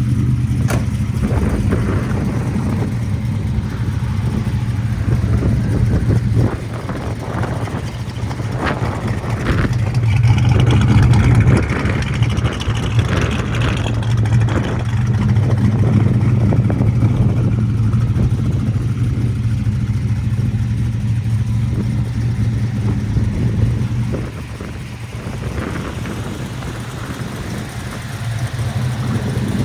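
The 1967 Chevrolet Chevelle's 427 big-block V8 idling steadily, turning a little quieter for a few seconds near the end.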